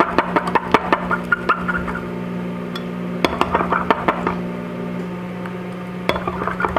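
Metal spoon clinking and scraping against the inside of a glass measuring cup while stirring colour into liquid soft-plastic, in quick runs of taps with pauses between, over a steady low hum.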